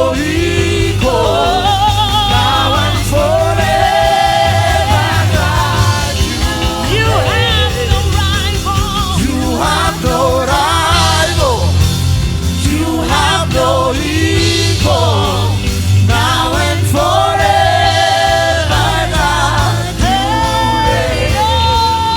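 Live gospel worship music: a lead singer with backing voices holding long, wavering notes over a band with a steady bass.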